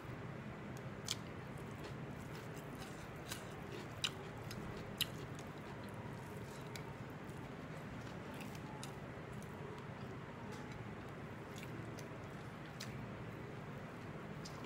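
A person chewing a mouthful of meat khichuri, heard as scattered sharp mouth clicks and smacks. The clicks are loudest about one, four and five seconds in, over a steady low hum.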